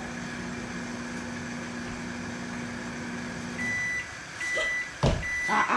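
Microwave oven running with a steady hum that stops about three and a half seconds in, followed by three high beeps signalling the end of its cycle. A single thump comes shortly after the beeps.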